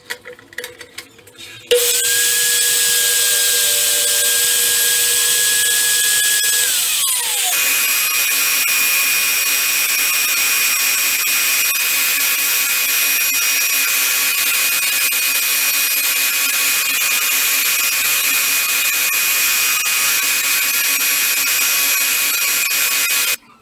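A miter saw's motor starts and runs with a steady whine for about five seconds, then falls in pitch as it winds down. A bench belt sander then runs steadily while a curved piece of white PVC is held against the belt, and it cuts off abruptly near the end.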